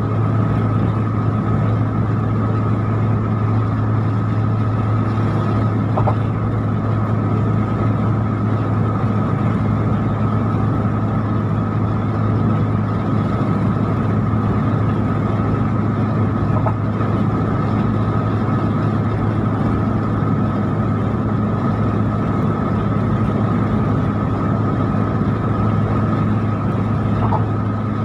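Car interior at steady cruising speed: an even low engine and road drone with a thin whine above it. There are three faint ticks, about ten seconds apart.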